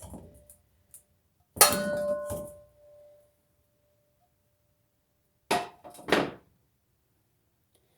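Kitchen bowl and utensils knocking on a counter as grated carrot is tipped into the bowl. A loud knock about a second and a half in rings on briefly, and two shorter knocks follow near the end.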